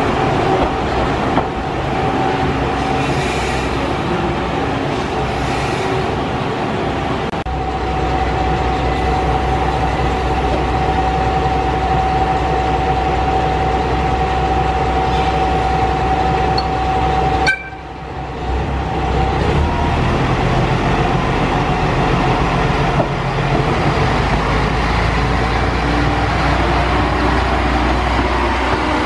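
Nagara River Railway diesel railcar running at the station: a steady engine rumble with a held whining tone through the first half or more. A brief drop comes about two-thirds of the way through, then the railcar moves off past the platform.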